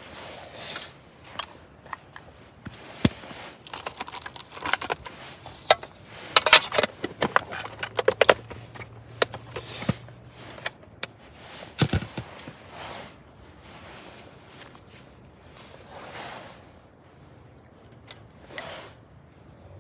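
Close handling of gear: a run of sharp clicks, snips and scrapes with rustling, busiest in the middle and thinning out near the end.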